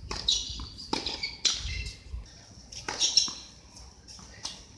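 Sneakers squeaking sharply on a hard tennis court, about five squeaks with a few knocks among them, over steady high bird chirping.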